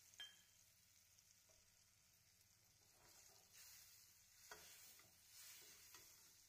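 Faint stirring of kadhi in a stainless steel pan: a steel ladle clinking and scraping against the pan over a light sizzle, with a sharp clink just after the start and another about four and a half seconds in.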